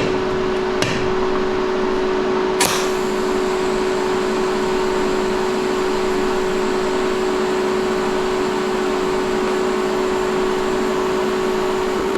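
TIG welder running steadily while tack-welding a cut-down steel motorcycle rear fender: a constant electric hum with hiss, broken by two short clicks in the first few seconds.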